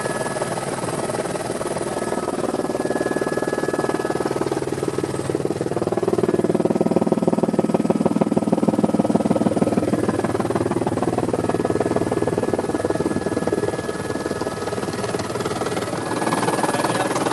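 Helicopter turbine and rotor noise heard inside the cabin: a steady drone with a fast rotor beat and a faint high whine, growing louder for a few seconds midway before settling back.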